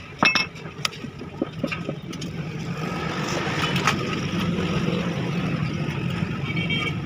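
A sharp metal clink with a brief ring as a part is handled on an engine cylinder head's rocker-arm assembly, then a few lighter clicks, over the steady rumble of a running vehicle engine that grows louder after about two seconds.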